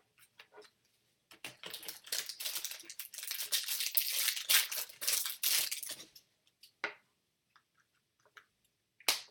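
Foil wrapper of a pack of baseball cards being torn open and crinkled, a dense crackling about a second in that lasts some five seconds, followed by a couple of sharp clicks.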